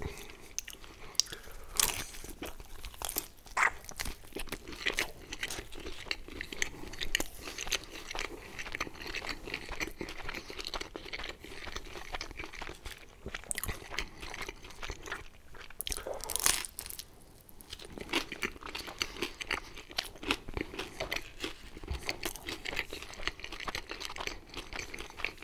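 Close-miked chewing of pizza: irregular crunching and biting of the baked crust, with a short lull about two-thirds of the way through.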